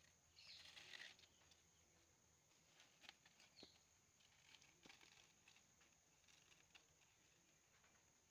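Faint rustling of dry palm-frond sticks being handled and pushed into a clay hearth, with a short rustle about a second in and scattered light clicks and snaps after it.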